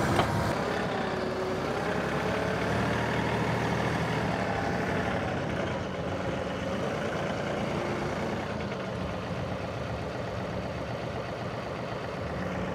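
John Deere 2038R compact tractor's three-cylinder diesel engine running steadily, with a faint whine that drifts up and down in pitch.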